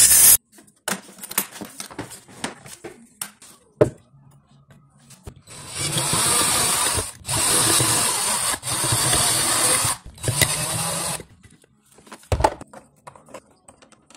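A cordless drill boring a hole in the home-made bracket piece, run in four bursts of about a second and a half each with short pauses between. Before it, a bench grinder grinding the metal cuts off about half a second in, followed by scattered handling clicks; there is a single knock near the end.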